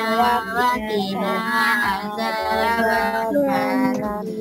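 A song playing: a singing voice carrying a melody over steady held backing notes.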